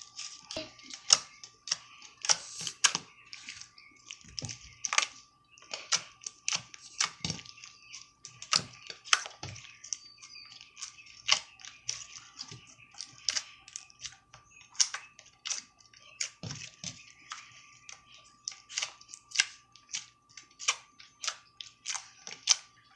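Hands squeezing and kneading slime: a dense, irregular run of sticky clicks and crackling pops, several a second, as the slime squelches and trapped air bubbles burst.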